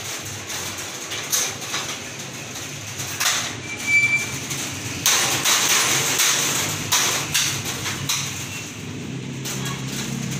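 Scattered clicks and knocks of hand work on an aluminium-framed glass sliding door, over street noise that swells into a louder rush about five to seven seconds in. A brief high chirp about four seconds in.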